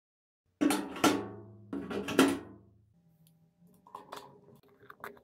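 Background music starting after dead silence: heavy drum-like hits with a pitched ring in the first two seconds or so, then quieter, sparse notes.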